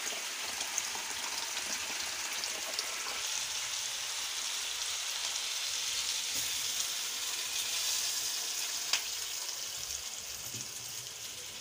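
Tap water running into a plastic measuring jug, then poured from the jug into a hot wok of frying tripe and tomato masala, which hisses and sizzles as the water hits it. One sharp tick sounds near the end.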